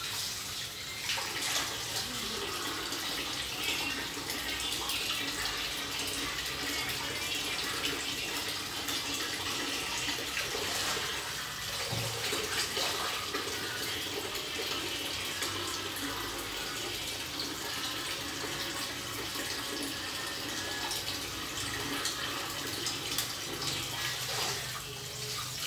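Kitchen tap running into a plastic bowl in a stainless steel sink while raw chicken pieces are rinsed and rubbed by hand, with small splashes.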